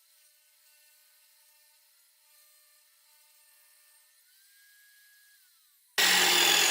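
Near silence with a faint high whine, then about six seconds in the loud, dense noise of a Ryobi table saw running cuts in abruptly.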